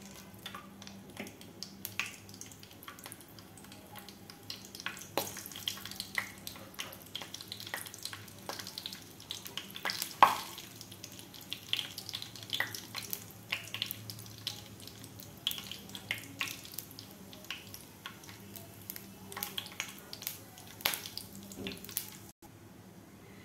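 Whole bay leaves and cinnamon sticks frying in hot ghee, a steady sizzle with irregular sharp crackles and pops. The crackling cuts off abruptly near the end.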